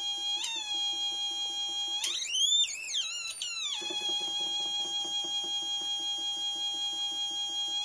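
Mini theremin sounding a steady, buzzy high tone. About two seconds in, its pitch swoops sharply up, wavers, and falls back to the same note after a couple of seconds as the cat moves its body and paw near it. A faint rapid pulsing runs beneath the tone.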